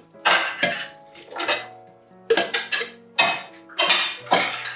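Metal utensil clinking and knocking against a dish as leftover roast vegetables are spooned into a blender: about ten sharp, irregular clinks.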